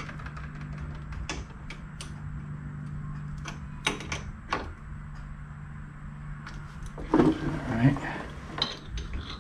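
Metal wrench and ratchet clicking and clinking against a lathe's quick-change tool post as its nut and tool holder are snugged down, a handful of separate sharp clicks over a steady low hum.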